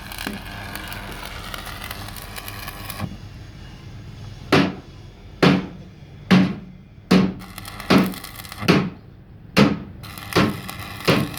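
Regular, heavy hammer blows, about one a second, beginning about four and a half seconds in, each with a short ring. Before them there is a few seconds of steady rough noise.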